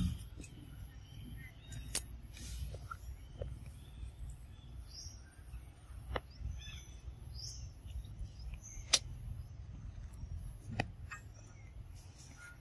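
Quiet outdoor ambience with faint bird chirps and a low rumble, broken by four sharp clicks or taps spaced a few seconds apart, the loudest about two-thirds of the way through.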